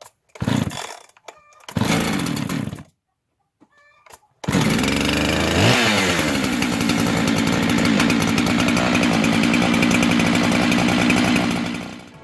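Husqvarna 385XP two-stroke chainsaw: two short bursts of running in the first three seconds, then, after a pause, it runs, revs up to full throttle and holds there steadily at high speed, as when cutting a log in a chainsaw mill.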